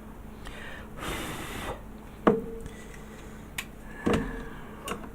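Hands working a plastic model kit with a hot glue gun: a short hiss about a second in, then four sharp knocks and clicks, the loudest a little past two seconds in with a brief ring.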